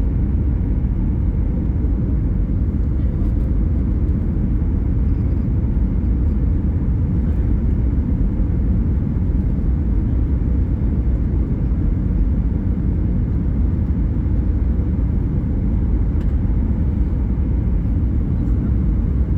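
Steady low rumble of a jet airliner's cabin, the engines and airflow heard from inside the passenger cabin.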